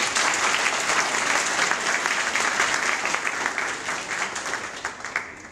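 Audience clapping hands in applause, dying away shortly before the end.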